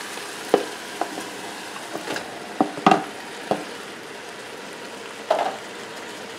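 Chopped onions and garlic sizzling steadily in hot oil in a pot while cubes of raw stewing beef are tipped in and pushed about, with several short sharp knocks of the container and wooden spoon against the pot.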